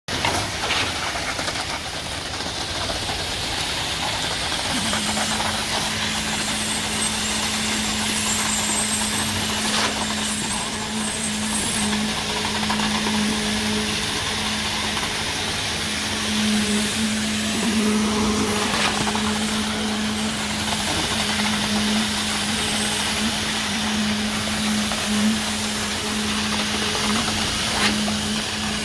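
Construction machinery running steadily during a concrete slab pour: a constant engine drone, joined by a steady low hum about five seconds in, over a continuous rushing noise.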